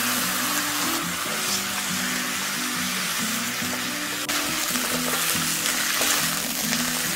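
Pork hocks sizzling in hot oil in a frying pan as a spatula turns them, a steady sizzle throughout. Background music plays over it.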